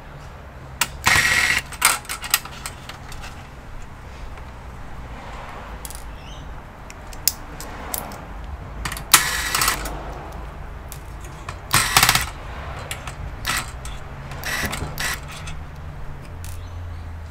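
Clicks, taps and scrapes of metal and plastic computer parts being handled and pried during disassembly of an all-in-one PC. A few louder scraping bursts of about half a second stand out, over a faint steady low hum.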